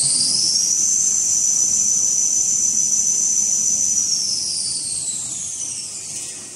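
Toilet paper rewinding machine running with a high-pitched motor whine. The whine finishes rising in pitch about half a second in, holds steady for about three seconds, then falls in pitch and fades as the machine slows.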